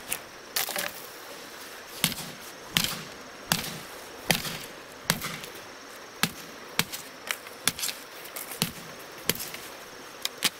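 Repeated chopping strikes of a blade into wood: sharp single knocks coming irregularly, about one or two a second.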